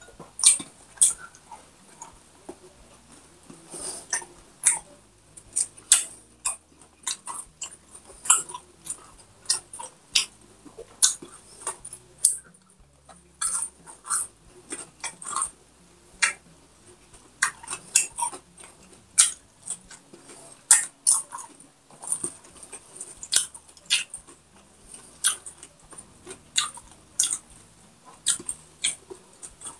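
Close-miked chewing of crispy deep-fried pork, with sharp irregular crunches, about one or two a second, and wet mouth sounds between them.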